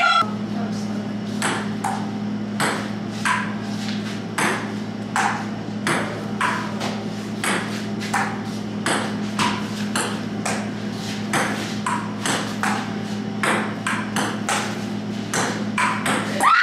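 Table tennis rally: the ping-pong ball clicking off the paddles and the table in an even back-and-forth, about one and a half clicks a second, over a steady low hum.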